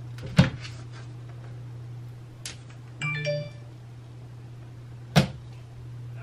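A steady low hum, two sharp clicks about half a second in and near the end, and a short chime-like ding with several tones about three seconds in.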